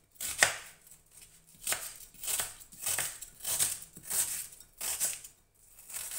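Chef's knife slicing a large onion into thin julienne strips on a plastic cutting board: a steady series of about ten cuts, each a crisp crunch ending in a tap on the board.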